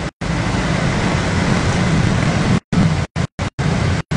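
Motorbike traffic riding through floodwater: a steady wash of engine and water noise. From about two and a half seconds in, the sound is cut up by repeated brief dropouts in the audio.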